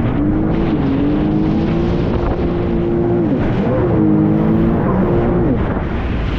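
Jet ski engine running at speed over a steady rush of noise. Its pitch dips and climbs back twice, about three and a half seconds in and again near five and a half seconds, as the throttle is eased and reopened.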